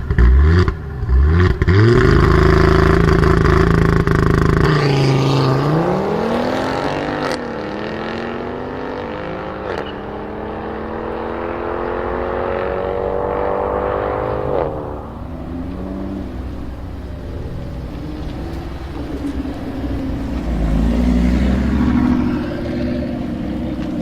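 Audi RS3 Sportback 8V's five-cylinder engine through a Milltek exhaust, revved hard with sharp cracks in the first two seconds. About five seconds in the note drops, then climbs slowly in pitch for ten seconds with a couple more sharp cracks before falling away; it swells again near the end.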